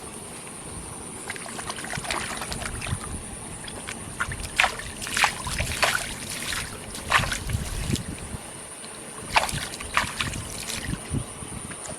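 Shallow canal water sloshing and splashing, with a string of irregular splashes from about four seconds in.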